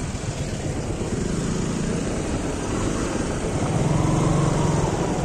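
Motorcycle and scooter engines running in slow, crowded traffic on a dirt road, with a louder engine swelling about four seconds in.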